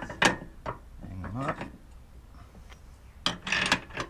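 Metal clinks and knocks as steel bracket plates from a Correct Track alignment kit are handled and fitted against a trailer's leaf-spring hanger. There are a few sharp clicks near the start, a brief low rising sound about a second in, and a cluster of clinks near the end.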